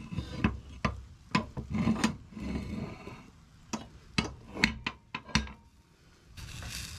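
Hinged cast iron potato cooker being opened out and handled: a string of clanks, knocks and scrapes as the heavy halves and handle are moved and set down on the board. A faint steady hiss starts near the end.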